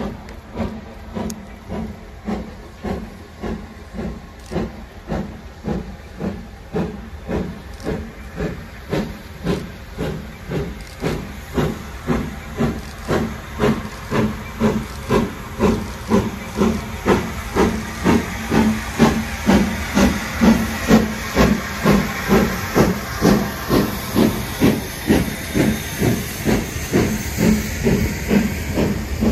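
GWR Castle-class four-cylinder 4-6-0 steam locomotive 7029 Clun Castle working hard under a train, its exhaust beating steadily at about three beats every two seconds. The beats grow louder as it draws near, with hissing steam behind them.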